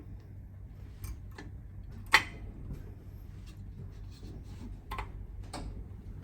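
Rear disc-brake pads being fitted into the caliper bracket: a few sharp metallic clicks and knocks, the loudest about two seconds in.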